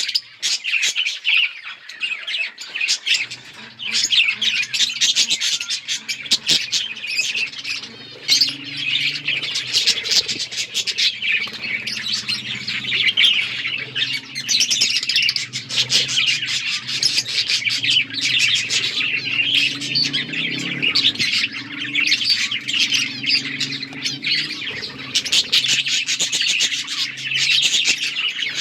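A flock of budgerigars chirping and chattering continuously, many calls overlapping. A faint low hum sits underneath from about three seconds in.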